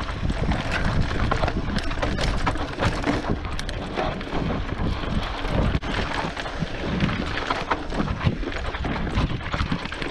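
Mountain bike riding down a dry dirt singletrack: tyres crunching on dirt and gravel, and the bike rattling with many irregular knocks over rocks and bumps. Steady wind rush on the microphone runs under it.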